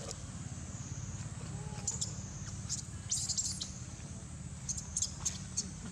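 A series of short, high-pitched animal chirps and squeaks, a cluster of them about three seconds in and a few more near the end, over a steady high hum and a low rumble.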